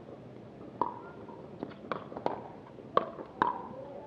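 Pickleball rally: paddles striking a hard plastic pickleball, with the ball bouncing on the court. There are about six sharp pops in under three seconds, and the last two are the loudest.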